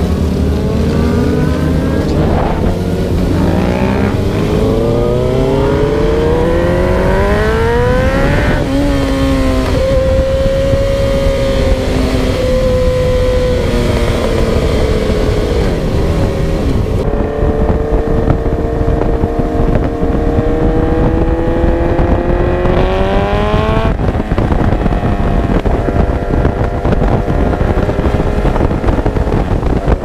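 Suzuki GSX-R sportbike engine heard from on board under acceleration. Its pitch climbs for about eight seconds and drops sharply at an upshift, holds, then climbs again and drops once more about two-thirds of the way through. A steady low wind rumble on the microphone runs under it.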